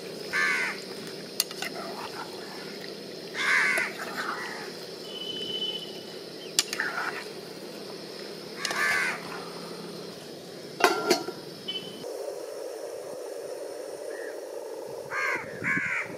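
Crows cawing, harsh calls repeated every few seconds, with a few sharp clicks of a metal ladle against the cooking pan.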